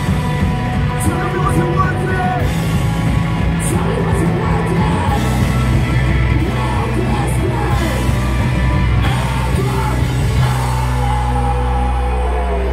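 Live post-hardcore band playing loud: yelled and sung vocals over distorted electric guitars, bass and drums. About ten seconds in, the drumming stops and the guitars and bass ring on in a held chord.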